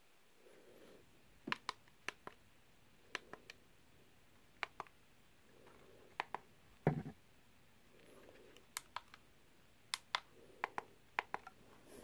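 Plastic front-panel buttons on an Eton Zoneguard weather alert radio clicking as they are pressed, mostly in quick pairs every second or so. There is one duller knock about seven seconds in.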